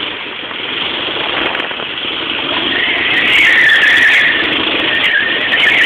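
Go-kart engine running and getting louder. About three seconds in, a high tyre squeal sets in and holds as the kart does a burnout.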